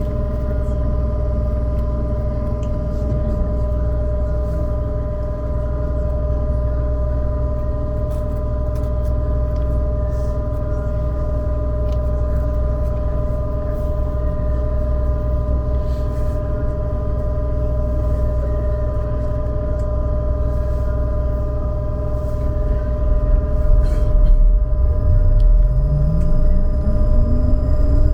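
Trolleybus running, heard from inside: a low rumble under a steady electrical hum of several fixed tones. From about 24 s in, the traction motor's whine starts low and rises steadily in pitch as the trolleybus accelerates.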